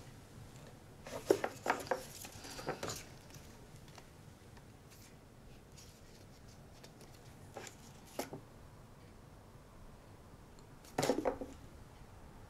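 Photographs or cards being handled and leafed through: a few short clusters of crisp rustles and clicks, about a second in, again near eight seconds and near the end, with a faint room hush between.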